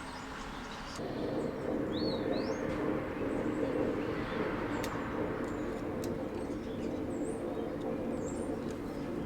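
Small birds chirping, short gliding calls now and then, over a steady low hum that sets in about a second in.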